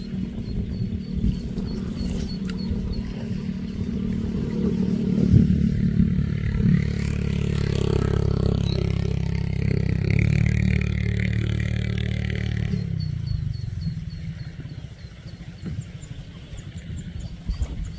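An engine running: it swells louder through the middle and drops back sharply about 13 seconds in.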